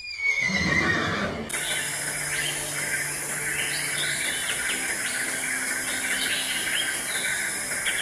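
A horse's whinny trails off over the first second, its pitch falling. From about a second and a half in it gives way abruptly to a steady hissing din with busy high chatter, which holds until the end.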